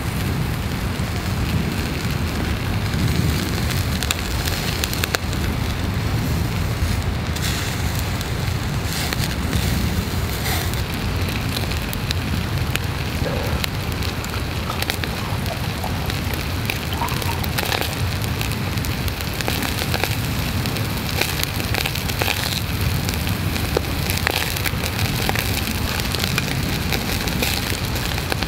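Meat skewers sizzling over a charcoal shichirin grill, a steady rain-like hiss with sharp little crackles and pops from the coals scattered through it.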